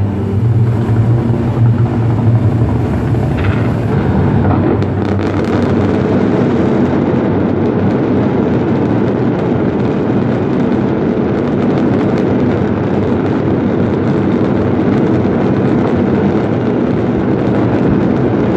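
A fireworks barrage: many shells and cascades going off at once, a continuous dense crackling and banging that blends into one steady noise.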